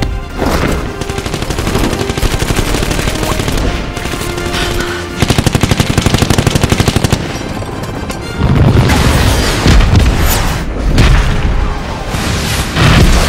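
Film battle soundtrack: bursts of rapid automatic gunfire, the longest running about two seconds from five seconds in, followed by heavy booming explosions, all over music.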